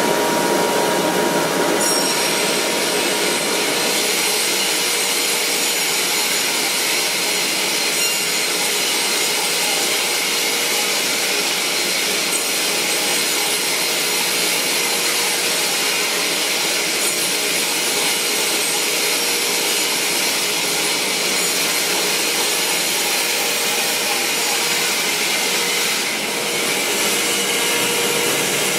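Vertical band saw (HB 800H) running steadily while wooden boards are ripped through it by a powered roller feeder: a continuous, even sawing noise with a constant machine hum.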